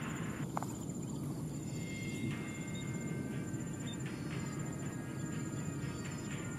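Insects trilling steadily in a high, rapid pulse over a low background rumble, with a few faint short chirps.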